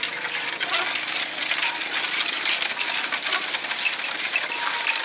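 Small round bells on an ox's neck collar jingling continuously as the ox walks, mixed with the clatter of a wooden oxcart rolling over a dirt road.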